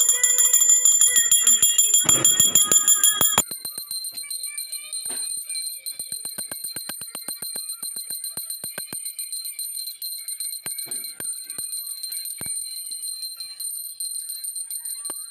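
Brass puja hand bell (ghanti) rung rapidly and continuously during aarti, a bright, jangling ring of fast strokes. A little over three seconds in it suddenly becomes quieter and changes pitch, then keeps ringing.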